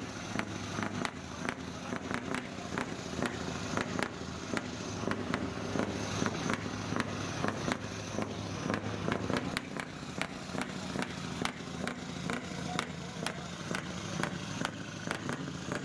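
Truck engine idling under a steady low hum, with frequent sharp clicks or crackles, two or three a second.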